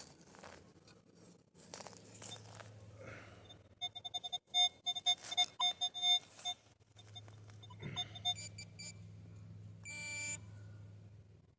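Metal detector beeping in quick repeated tones over a buzried target, mixed with scraping and digging noises, then a short buzzing tone about ten seconds in. The target is aluminium junk that gives much the same signal as a coin.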